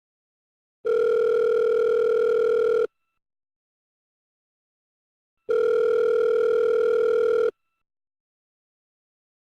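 North American telephone ringback tone, ringing twice, each ring about two seconds long with about four and a half seconds of silence between. It is the sign that the dialled line is ringing and has not yet been answered.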